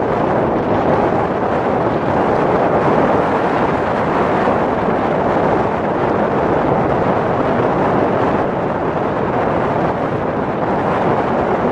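Steady wind buffeting the microphone over open water, mixed with the wash of choppy waves.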